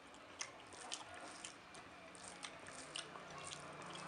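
Close-miked wet chewing of khichuri and egg curry, with a series of sharp mouth smacks roughly every half second.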